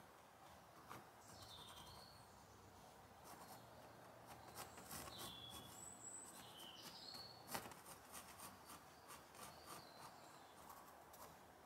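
Near silence: faint scratching of a graphite pencil sketching on canvas, with a few faint high bird chirps and one light click about seven and a half seconds in.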